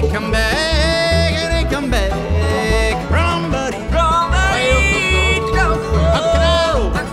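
Bluegrass band playing live, with banjo and guitar over a bass line that alternates notes about twice a second, and a lead melody of held notes that slide up and down.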